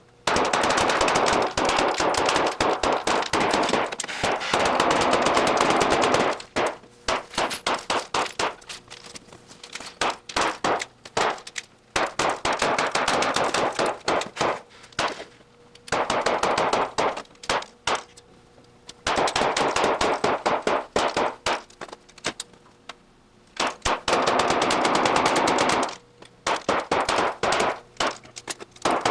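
A Ruger Mark IV Competition .22 LR pistol firing Aguila Standard Velocity 40-grain rounds in rapid strings of shots, with short pauses between strings.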